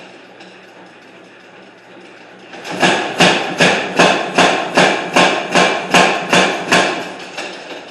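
Hammer blows on a loaf of iron being forged into a square bar: a run of about eleven evenly spaced, ringing strikes, roughly three a second, starting about three seconds in.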